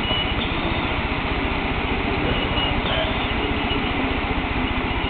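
Model freight train running on the layout's track: a steady mechanical rattle of the locomotive's motor and wheels, with rapid, even clicking.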